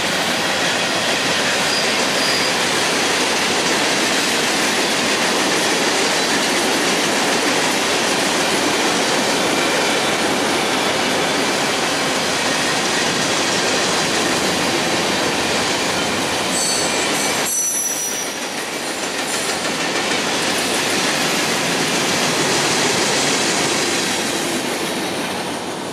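Freight train cars rolling past on the rails: a steady rumble and rattle of wheels on track, with brief high wheel squeals about two seconds in and again around two-thirds of the way through. The sound fades near the end as the last cars go by.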